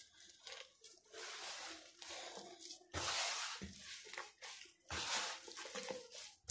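A hand mixing and kneading sticky pizza dough with flour in a plastic bowl: soft, irregular squishing and rubbing strokes with short pauses between them.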